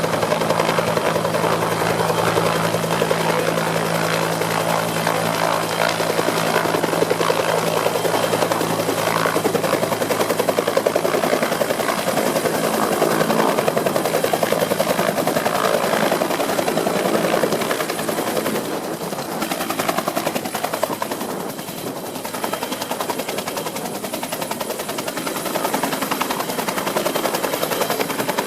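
Helicopter rotor blades beating in a fast, even chop close by. The sound eases somewhat past the middle, then builds again near the end.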